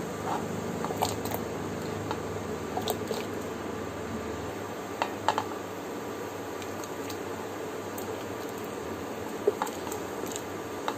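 Pieces of cassava dropped by hand into a pot of boiling water: a steady bubbling hiss with several short splashes, two close together about halfway through and another near the end.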